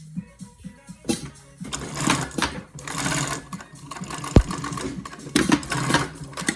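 Dürkopp Adler 367 industrial lockstitch sewing machine stitching in several short runs, with a fast mechanical ticking and a single sharp click about four and a half seconds in.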